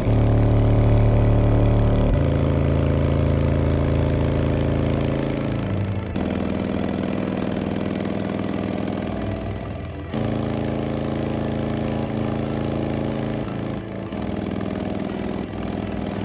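Ground Zero GZHW 12 XSPL D1 12-inch subwoofer playing bass-heavy music free-air, with no enclosure. Long held bass notes change every few seconds, with short breaks about six, ten and fourteen seconds in.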